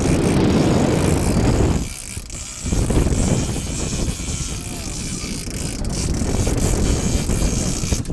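Wind buffeting the microphone over the steady running of a boat's engine, dropping briefly about two seconds in.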